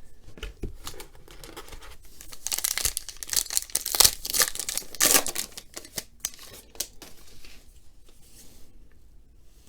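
A trading-card pack wrapper being torn open and crinkled, loudest in a burst a few seconds in, then quieter rustling.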